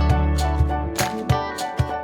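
Upbeat background music with a steady beat; a deep bass note drops away about a second in, leaving the beat and melody.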